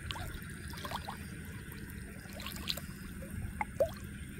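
A hand groping and swishing through shallow, weedy water while feeling for a fish by hand, with small splashes and dribbling drips.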